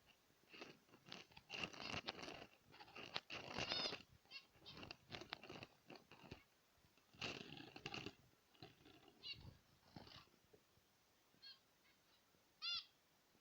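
Zebra finches calling: short, repeated nasal beeps mixed with bursts of scratchy chatter, busiest in the first four seconds and again around seven to eight seconds in, with one clear call near the end.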